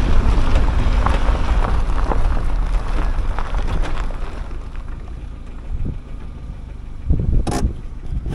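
Car driving up a rough dirt and rock track: engine rumble under load with tyres crunching and stones crackling, easing off about halfway through, and one sharp knock near the end.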